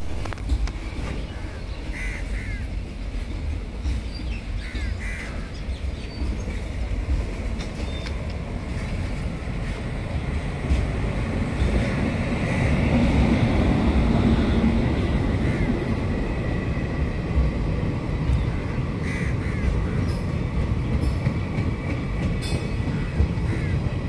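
Trains passing on a rail bridge: a steady rumble of wheels on track, at its loudest about halfway through as an electric locomotive hauling passenger coaches goes by, with a few short bird calls.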